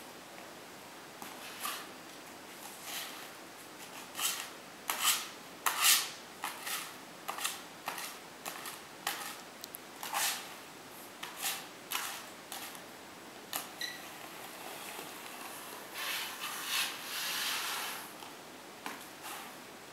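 Long-handled notched adhesive spreader scraping flooring adhesive across a concrete floor in a run of irregular strokes, with several louder ones about five to six seconds in and a longer drawn-out stroke near the end.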